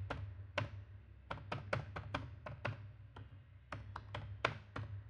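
Computer keyboard keys being typed one by one, a run of sharp clicks at about four a second with a short pause about three seconds in, over a faint low hum.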